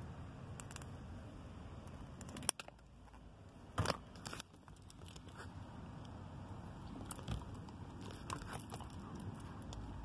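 Diagonal cutters snipping the connector clip off the red and black wires of a GPS tracker harness: a few sharp clicks, the loudest about two and a half and four seconds in, amid light handling noise of wires and plastic.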